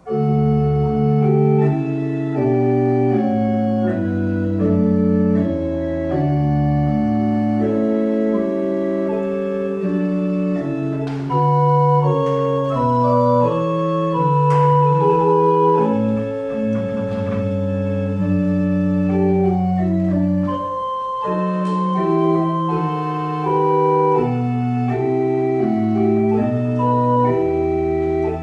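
Church pipe organ playing the closing voluntary in slow, held chords over a moving bass line, with a few light knocks near the middle.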